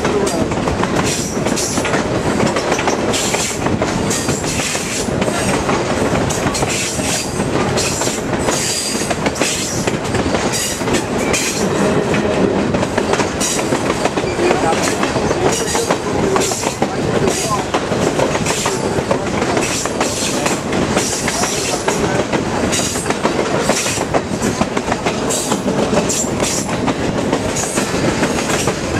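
Passenger train rolling along, heard from outside the cars: a steady rumble of wheels on rail with frequent irregular clicks and clacks from the wheels running over rail joints.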